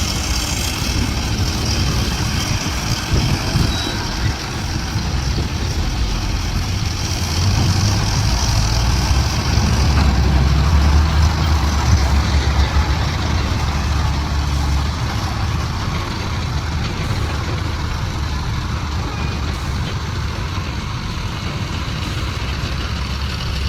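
Heavy diesel earthmoving machinery, an excavator and dump trucks, running with a steady low rumble that gets heavier and louder for several seconds in the middle, then eases.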